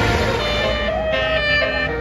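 Basuri multi-tone telolet bus horn playing a melody, its notes stepping from pitch to pitch several times a second, over a low engine rumble.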